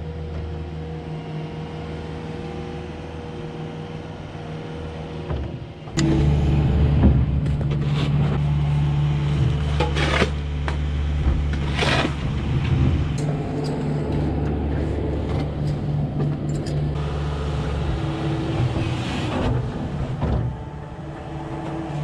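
Kubota SSV skid steer's diesel engine running steadily, louder from about six seconds in. A snow shovel scrapes on concrete a few times over it.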